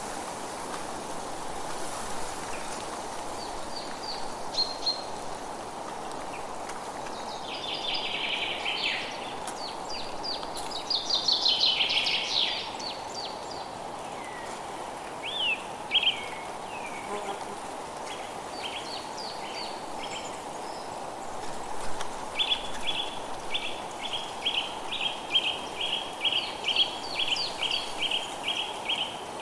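Forest ambience: several birds singing and calling over a steady background hiss. About halfway through there is a brief burst of dense song, and near the end one bird repeats a quick chirp about three times a second.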